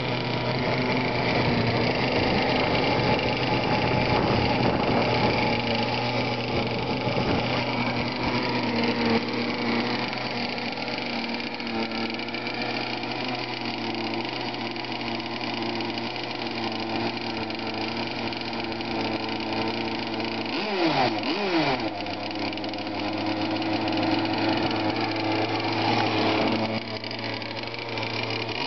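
The small two-stroke gas engine of a large radio-controlled racing boat idling steadily out of the water, with a couple of quick swings in pitch about two-thirds of the way through.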